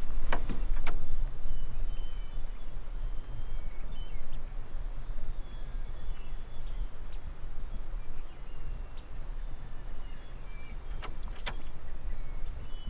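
A steady low rumble, with faint short high chirps scattered through it. There are two sharp knocks about half a second and a second in, and two more near the end.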